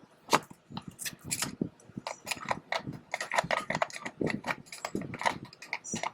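Irregular small metallic clicks and taps of screws being set into position in the die-cast cover of a BLDC ceiling fan motor.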